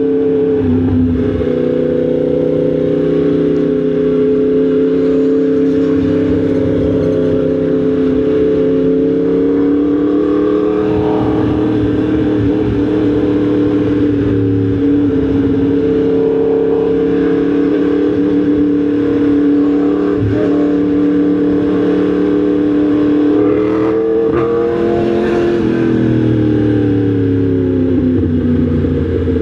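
Yamaha MT-10 SP's crossplane inline-four engine running at fairly steady riding revs, its pitch drifting gently, rising briefly and then easing off near the end, over a steady wind and road rush.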